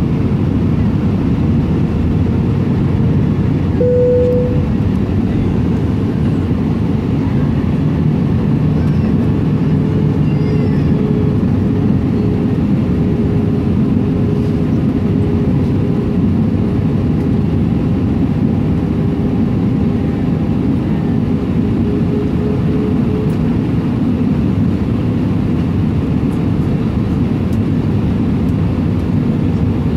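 Steady cabin noise of an Airbus A320 on approach, heard from inside the cabin over the wing: low engine and airflow rumble with a steady hum running through it.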